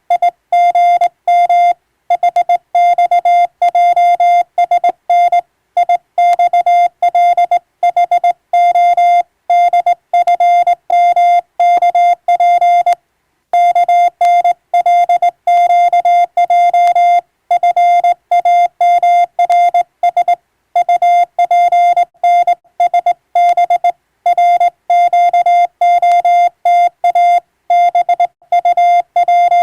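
Morse code sent as a single steady tone of about 700 Hz, keyed rapidly into short and long marks at an even, brisk pace, like radiotelegraph (CW) traffic for receiving practice. There is a short pause about 13 seconds in.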